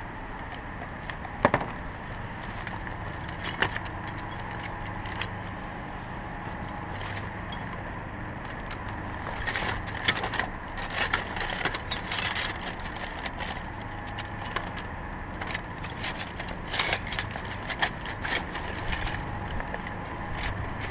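Metal wrenches clinking and jangling against each other as hands rummage through a canvas tool bag. A few single clicks come first, then a busy run of clinks through the middle and latter part, over a steady low background noise.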